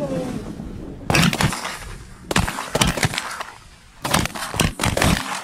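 A volley of shotgun fire from several hunters shooting at incoming ducks: one shot about a second in, then two quick clusters of shots, roughly eight blasts in all, fired in rapid, irregular succession.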